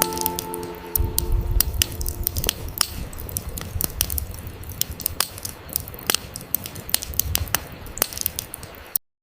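Campfire crackling, with frequent sharp pops and snaps over a low rumble. Soft music fades out in the first second, and the sound cuts off suddenly about nine seconds in.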